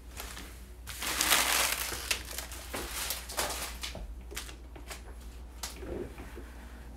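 Crinkling and rustling of crinkly material handled by hand, loudest about a second in, followed by a scatter of light clicks and taps.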